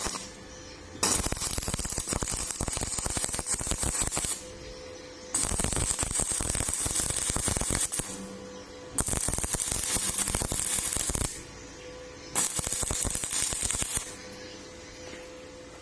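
Stick (arc) welding: four separate bursts of arc crackle and sizzle, each lasting a couple of seconds, as short runs are struck and broken. A steady hum sounds in the pauses between them.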